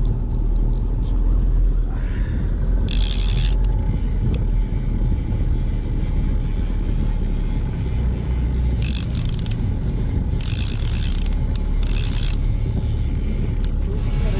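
Small boat's outboard motor running with wind rumbling on the microphone, while a conventional trolling reel is cranked to wind in a fish just hooked on a trolled lure. A few short bursts of hiss come and go.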